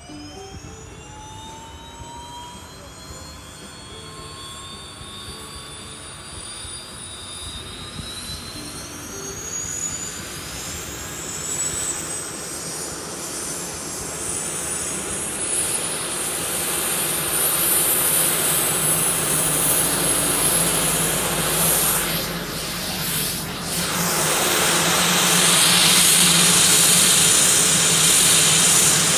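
The Basler BT-67's number 2 engine, a Pratt & Whitney Canada PT6A-67R turboprop, starting up. A high whine climbs steadily in pitch as the turbine spools up, and the sound grows louder, ending in a fuller, steady rush as the engine settles at idle.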